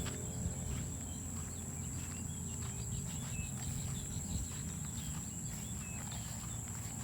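Rice-field ambience: a steady high-pitched insect drone with short, repeated bird chirps over it, and a constant low rumble underneath.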